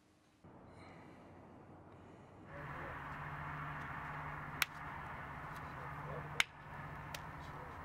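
Steady low hum of background noise at night, with two sharp hand slaps about two seconds apart and a fainter third one after them.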